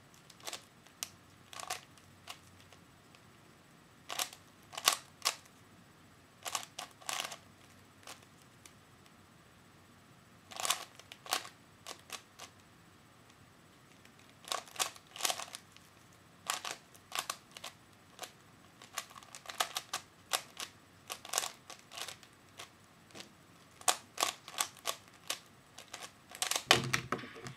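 Store-bought 3x3 Rubik's Cube being turned fast in a timed solve: bursts of plastic clicking and clacking layer turns, separated by short pauses. A denser, louder clatter comes near the end as the solve finishes.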